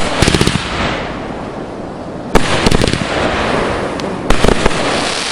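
Fireworks bursting overhead: three loud bangs, one at the start, one about two and a half seconds in and one a little over four seconds in. Each is followed by a quick crackle of pops and a hissing fade.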